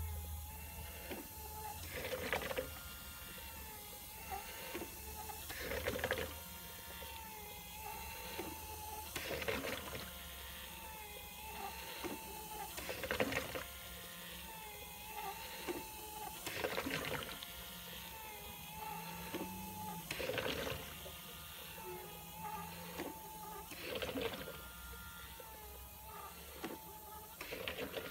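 Experimental 3D-printed SparkVent2 emergency ventilator running: its 12 V geared DC motor whines steadily while the printed cams pinch the silicone tubes. A louder rush of air sounds once per breath cycle, about every three and a half seconds.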